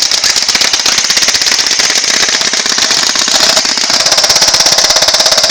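Airsoft gun firing full-auto in one long continuous burst: a fast, even rattle of shots.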